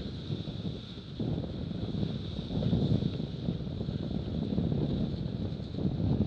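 Wind buffeting the microphone over the rush of water and spray off a Cirrus F18 catamaran's hull sailing fast, the noise surging and easing unevenly.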